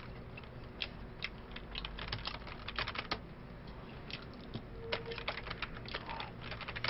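Typing on a computer keyboard: irregular runs of clicking keystrokes.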